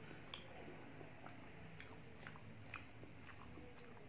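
Faint close-miked chewing of soft, yogurt-soaked dahi bhalla, with small scattered wet mouth clicks.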